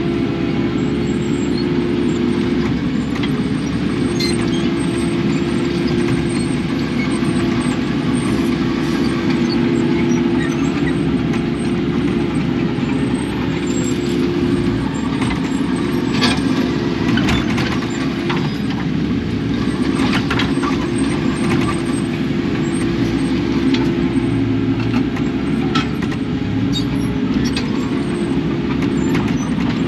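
Kubota KX080 excavator's diesel engine running steadily while digging a ditch, with scattered sharp clicks and knocks about halfway through.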